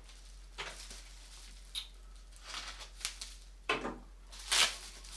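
Paper wrapping rustling and crinkling in a string of short rustles as a small wrapped parcel is handled, the loudest about four and a half seconds in.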